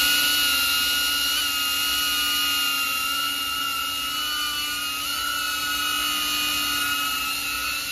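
DJI Avata FPV drone's ducted propellers whining steadily as it hovers low, the pitch wavering slightly now and then.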